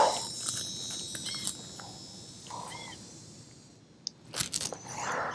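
Faint outdoor background of steady high-pitched wildlife tones with a few short chirps; about four seconds in a sharp click, then a few knocks and rustles from hands unhooking a caught bass.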